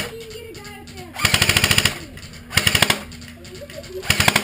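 An airsoft electric gun (AEG) firing three short full-auto bursts, each a fast rattle of shots. The gun is running on a 9.6-volt battery.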